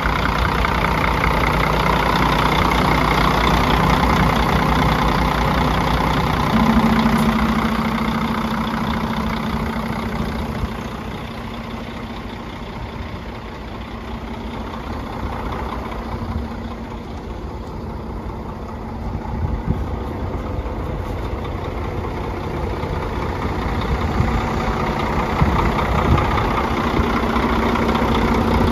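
Diesel engine of a 2006 Freightliner Columbia truck idling steadily. It is louder at first, softer through the middle and louder again near the end.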